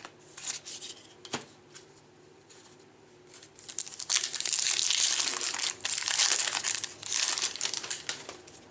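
Foil trading-card pack wrapper being torn open and crinkled, loudly for about four seconds starting about three and a half seconds in. A few light clicks come before it.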